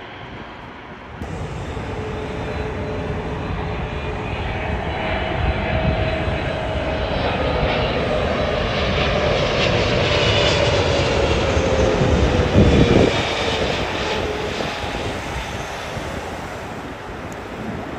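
Japan Airlines Boeing 777 passing low on final approach: jet engine noise building, with a whine that slides slowly down in pitch, loudest about two-thirds of the way through, then fading.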